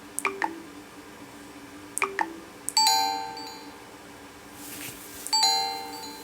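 HTC Desire 610 phone speaker playing short notification-tone previews. There are a couple of light clicks, then a bright bell-like chime about three seconds in that fades out, and a second similar chime near the end.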